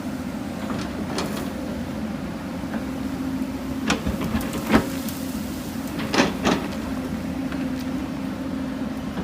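Hyundai 220 excavator's diesel engine running steadily under load, with several sharp knocks and scrapes of the bucket working soil and rock. The loudest knock comes near the middle, and two more follow close together.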